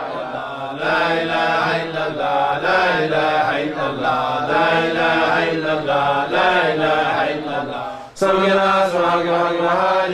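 Islamic devotional chanting: a voice chant in long, drawn-out melodic phrases. It breaks off about eight seconds in and starts again louder.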